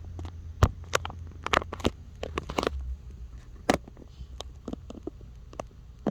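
Irregular sharp clicks and knocks of hands handling a power switch and its parts, over a steady low hum.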